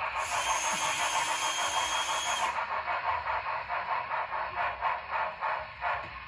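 HO-scale Union Pacific steam locomotive's DCC sound decoder, played through its small onboard speaker, giving a steady chuff of about four beats a second as the engine runs. A loud hiss of steam sounds over the chuffing for the first two and a half seconds, then cuts off.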